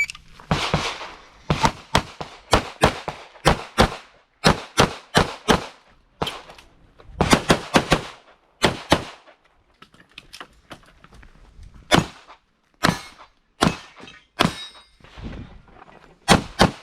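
Handgun fired rapidly in pairs and strings of shots, with a few short pauses between groups, as an IPSC stage is shot. Some shots are followed by metallic clangs and ringing, as of steel targets being hit.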